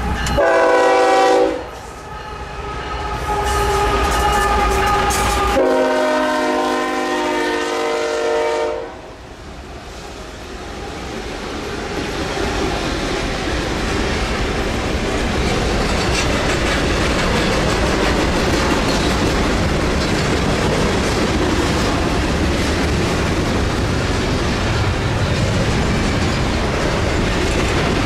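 Norfolk Southern freight locomotive's horn sounding twice, a short blast and then a longer one of about three seconds. The train then rolls past with a steady rumble of wheels on rail and clickety-clack from the rail joints.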